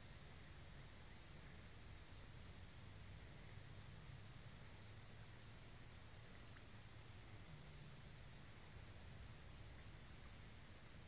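Faint insect chirping: a steady series of short, high-pitched chirps, about three a second, that stops about ten seconds in.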